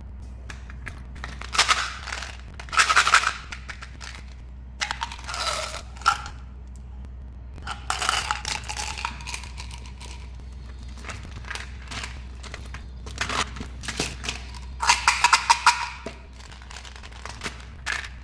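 Plastic candy wrappers crinkling and tearing in several separate bursts of crackling, over a steady low hum.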